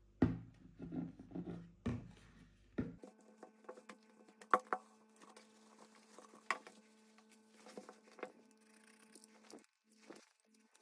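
Hands handling craft materials on a table: rustling of denim fabric being worked over a cardboard tube, with several sharp taps and knocks. From about three seconds in, a faint steady hum lies underneath.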